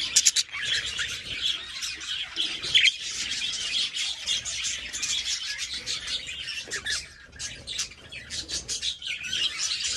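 A flock of budgerigars chattering and chirping nonstop, with many short calls overlapping.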